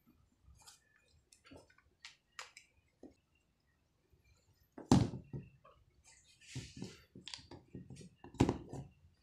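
Small clicks and taps of a thick phone case being pressed onto a Huawei Nova 3 smartphone, with a louder snap about five seconds in and another near the end as the case's edges seat around the phone.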